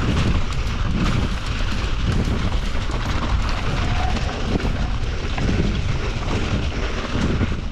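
Heavy wind buffeting the microphone: a steady, loud rumble with a hiss over it.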